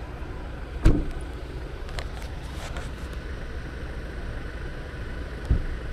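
A car door on a Honda Odyssey, with a sharp knock about a second in and a duller thump near the end, over a steady low rumble.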